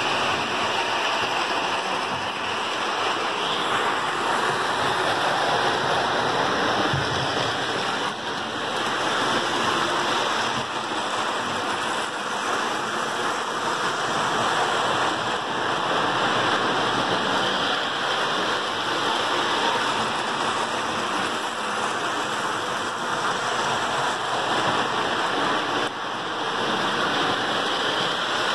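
Lionel postwar O-gauge toy trains running on tubular three-rail steel track: a steady, even noise of motors and wheels.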